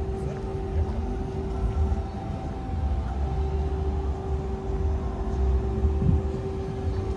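A steady low mechanical rumble with a constant humming tone.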